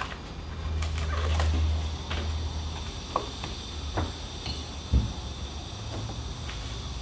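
Handling of a small cardboard box and a few light knocks as a metal Rapid Z diamond drum is taken out and set down on the bench, over a low steady hum.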